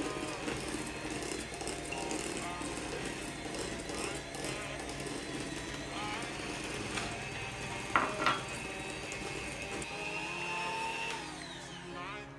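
Electric hand mixer running with a steady whine, its beaters working a stiff dough in a stainless steel bowl. Two sharp knocks come about eight seconds in, and near the end the motor's pitch falls as it winds down.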